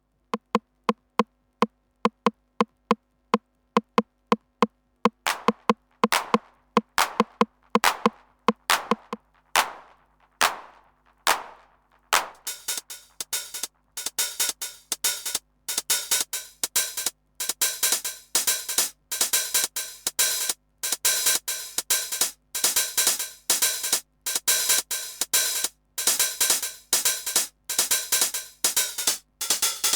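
TR-909 clone drum machine playing a rhythm pattern. It starts with a run of short pitched hits, about four a second, moves to hits with longer decaying tails, and from about twelve seconds in bright, hissy hits fill the pattern densely.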